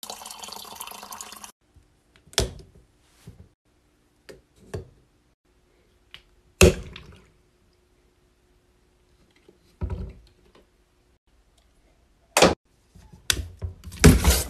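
Water from a refrigerator door dispenser running briefly into a plastic sports squeeze bottle. A series of separate knocks and clicks follows as the plastic bottle and its cap are handled and set on a counter, the loudest about a third of the way through.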